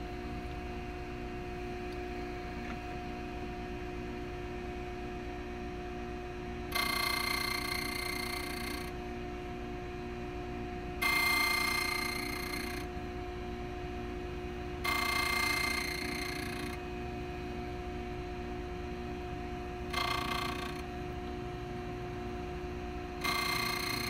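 HPC code key-cutting machine running with a steady motor hum, while five times the cutter grinds into a brass key blank with a louder high whine lasting a second or two, one cut at each space of the key.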